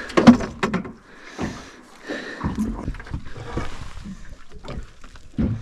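Knocks and clatter of a landing net and a netted rainbow trout being handled on a boat's floor, with a quick run of sharp knocks in the first second, scattered small clicks and rustling after, and another thump near the end.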